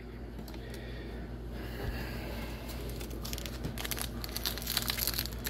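Foil wrapper of an Upper Deck MVP hockey card pack crinkling as it is handled and torn open. It is faint at first and builds into a quick run of crackles over the last couple of seconds.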